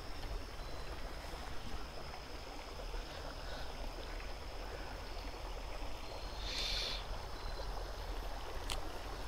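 Steady rush of a flowing creek, with a brief high-pitched sound about six and a half seconds in and a single sharp click near the end.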